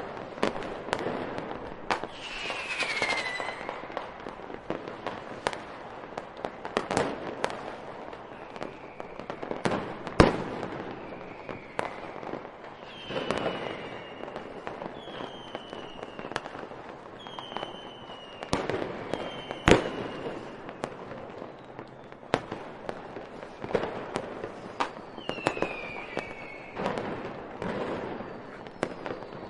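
Fireworks going off: a continuous run of bangs and crackling pops, with short falling whistles among them. The two sharpest bangs come about ten seconds in and again near twenty seconds.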